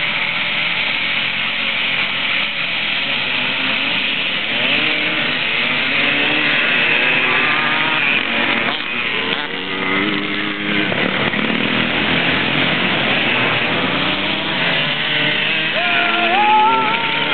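Several vintage two-stroke off-road motorcycles running and revving together as riders leave a start line in turn, with engine pitches rising and falling over one another. Near the end, one engine's pitch climbs steeply as that bike accelerates away.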